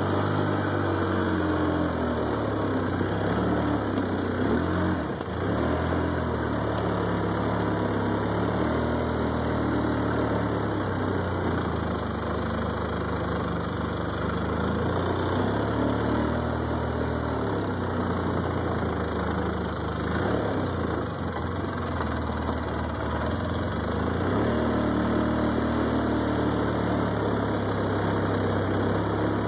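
Polaris ATV engine running while riding, its pitch dipping and rising again a few times as the engine speed changes.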